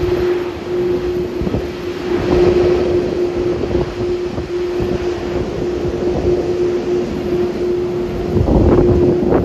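Jet engines of a Boeing 787-10 airliner: a steady rumble with a constant hum-like tone running through it, and wind buffeting the microphone in gusts, most strongly near the end.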